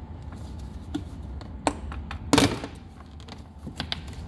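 Jaguar XF X250 plastic door card knocking and clicking as it is worked loose and pulled away from the door, its clips already popped out. There are a few scattered clicks, with one louder snap a little over two seconds in.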